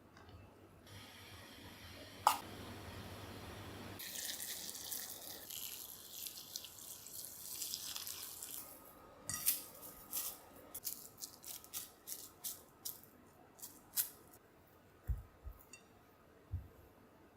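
Kitchen tap running into a sink, heavier after a few seconds, then shut off about halfway. A run of small sharp clicks and knocks follows, with a few low thumps near the end.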